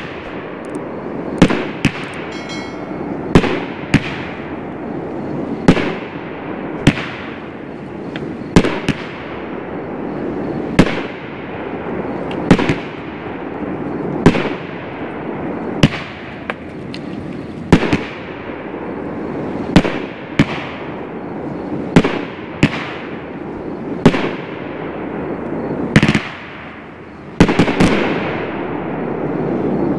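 Heavyweight Ariel Gold 500-gram 16-shot firework cake firing: a sharp bang every second or two as the shells launch and break, each with a fading tail. It is rated 8 out of 10 for loudness.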